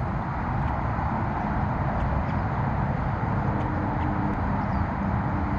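Steady low rumble of distant road traffic, with a faint hum running through it and a few faint high bird chirps.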